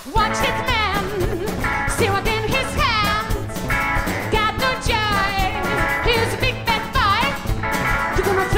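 Live country band music: a singer's melody with held, wavering notes over acoustic guitar and band accompaniment.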